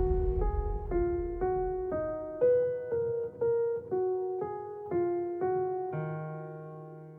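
Background music: a piano plays a simple melody, about two notes a second, then holds a final chord near the end that fades out.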